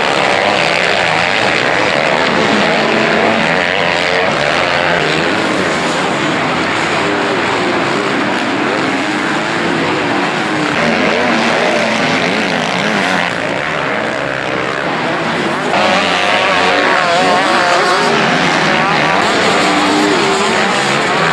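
Several motocross bikes racing, their engines revving up and down with many overlapping pitches; the sound swells louder a little over halfway through.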